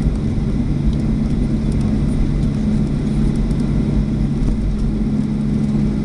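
Steady cabin noise of a jet airliner rolling on the runway after landing, heard from inside the cabin: a low rumble with an even engine hum.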